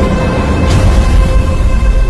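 Dramatic music over the end title: a heavy low rumble with a few held tones above it.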